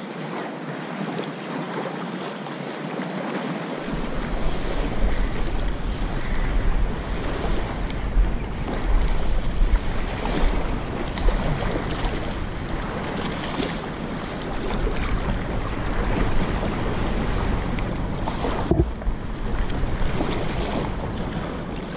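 Wind buffeting the microphone in uneven gusts, with a heavy low rumble from about four seconds in, over small waves lapping on a sandy shore.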